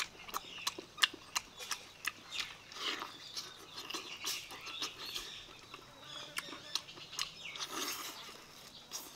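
Close wet chewing and smacking from eating gelatinous pork trotters: irregular sticky clicks, a few each second.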